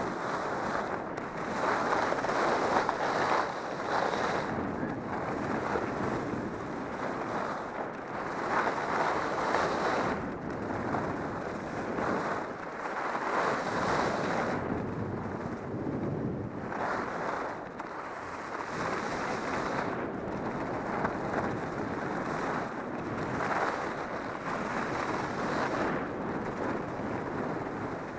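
Skis sliding and scraping over groomed snow in a continuous downhill run, swelling and easing every second or two with the turns, mixed with wind buffeting the camera microphone.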